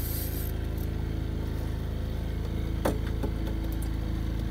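Boat motor running steadily at trolling speed, a low even hum, with a brief sharp sound about three seconds in.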